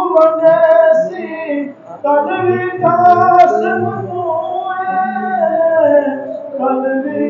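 Unaccompanied voice singing a devotional naat into a microphone, in long held notes that bend and waver, with short breaks between phrases.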